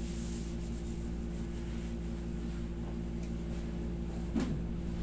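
Soft rubbing of hands and tissue on a man's cheeks and jaw over a steady low machine hum, with one brief sharp sound about four and a half seconds in.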